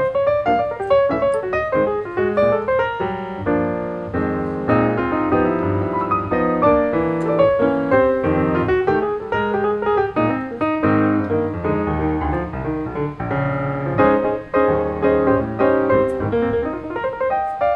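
Background piano music with a busy, continuous run of notes.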